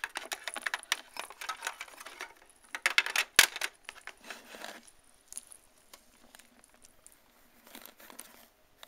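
Handling noise: clicks, taps and rustles of small plastic toy figurines and the camera being picked up and moved, busiest over the first five seconds with one sharper knock about three and a half seconds in, then only faint ticks.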